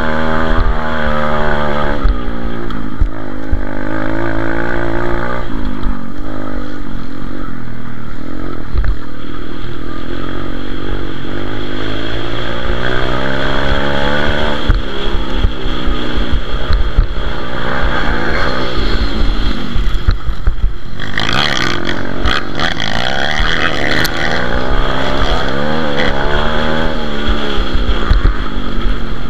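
Pit bike's small single-cylinder four-stroke engine heard close up from on board, revving up and dropping back again and again as the rider accelerates, shifts and brakes around the dirt track. A burst of rushing noise comes about two-thirds of the way through.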